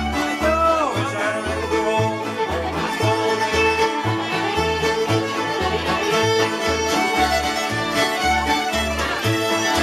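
Acoustic string band playing an instrumental tune: fiddles carry the melody over strummed guitars and banjo, with a plucked upright double bass keeping a steady beat of about two notes a second.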